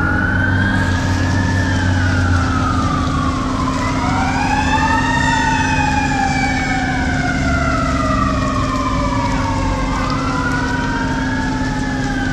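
Several emergency vehicle sirens wailing at once, their pitches rising and falling slowly and overlapping each other, over a steady low drone.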